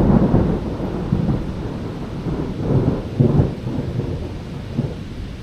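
Thunder from a storm a mile or two away, rumbling and rolling, loudest at the start and easing off, with a second swell about three seconds in.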